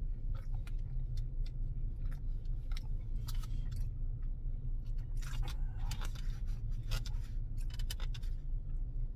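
Plastic fork scraping and clicking against a foam takeout container as noodles are stirred and twirled, with short rustling bursts, over a steady low rumble.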